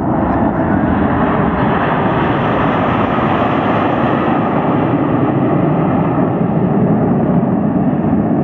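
Formation of jet aircraft flying past overhead: a loud, steady rush of jet engine noise that has built up just before and holds level throughout.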